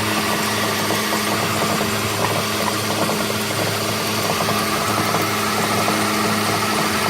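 Ford XH panel van engine idling with a light knocking from the loose air-conditioning compressor bouncing back and forth on its mounting.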